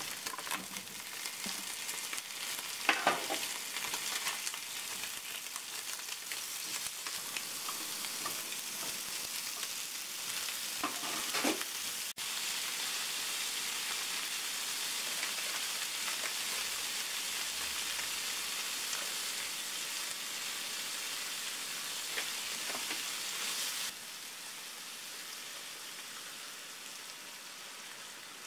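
Bitter melon, Spam and tofu sizzling in a nonstick frying pan, a steady frying hiss with a few brief louder knocks in the first half. The sizzle turns even after a sudden break midway and gets quieter near the end.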